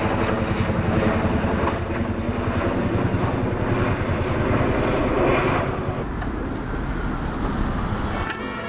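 Boeing CH-47 Chinook tandem-rotor helicopter flying overhead, its rotors beating rapidly and steadily.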